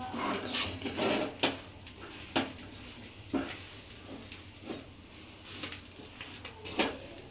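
Metal spatula tapping and scraping against a frying pan in irregular sharp clicks as egg-coated bread is pressed and turned, over a faint sizzle of frying.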